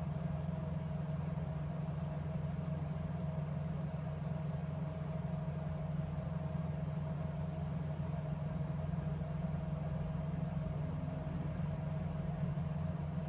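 Steady low mechanical hum with a faint higher whine held over it, unchanging throughout.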